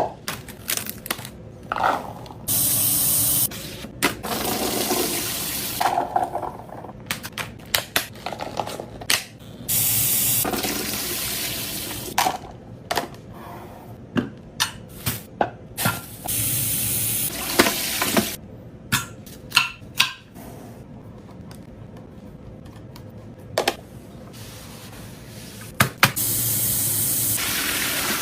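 Liquid being poured into containers in several separate stretches of a second or two each, between frequent short clicks and knocks of containers being handled and set down.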